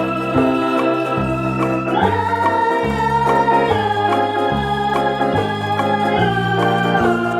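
Background music led by an electronic organ, with sustained chords over a bass line that steps from note to note.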